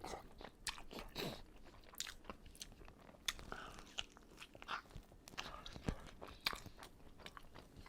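Close-miked chewing and biting of food: scattered soft crunches and wet mouth clicks.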